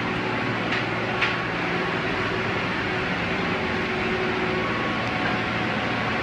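Steady hum of heavy machinery running, with two brief clicks about a second in.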